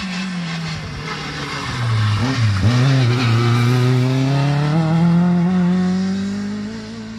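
Rally car engine coming off the throttle as the car brakes into a bend, the note falling, then a quick blip of revs on a downshift. It then accelerates hard past at close range, the engine note rising steadily through one long pull and easing off near the end.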